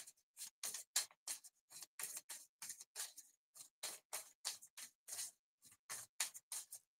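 A deck of cards shuffled by hand, overhand: quick, soft flicks of cards slipping off one another, about three a second, faint.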